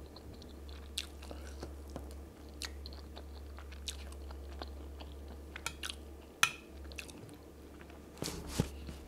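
Close-up chewing and mouth sounds of a person eating chicken and plantain pepper soup, with scattered sharp clicks, the loudest about two-thirds of the way through and near the end, from the metal spoon against the bowl and the mouth. A steady low hum runs underneath.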